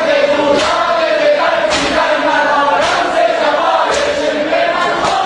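A group of male voices chanting a mourning lament (noha) in unison. A sharp slap lands about once a second, in the manner of chest-beating (matam) kept in time with the chant.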